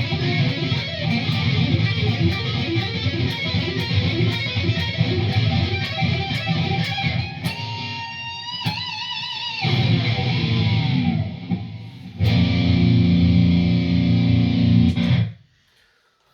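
ESP LTD Arrow Black Metal electric guitar with a single humbucker, played through a high-gain distorted lead tone: fast metal riffing, then a held note with wide vibrato about halfway through, and a sustained chord that rings for about three seconds before cutting off sharply near the end.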